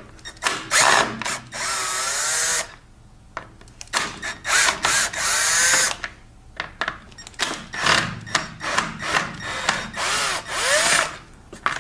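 Cordless drill/driver backing out the Phillips head screws of a scooter's radiator cover. It runs in several short goes, and the motor's pitch rises and falls as the trigger is squeezed and eased.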